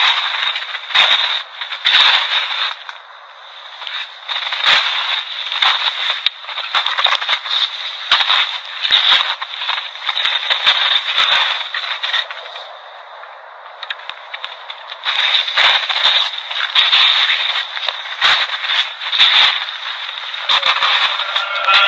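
Harsh crackling and scraping noise, thin and narrow like an old radio, with loud crackles coming irregularly about once a second. It quiets briefly about three seconds in and again for a couple of seconds past the middle.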